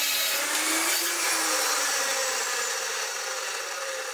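Metal-cutting chop saw running as it cuts through a stick of metal at a 45-degree angle: a loud, steady, high grinding whine. Over the last second or two the motor winds down, falling in pitch and fading.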